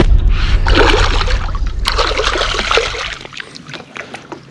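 Water splashing and dribbling as a hooked bass thrashes at the surface beside a dock while it is landed, over a low rumble. The splashing and the rumble fade about three seconds in.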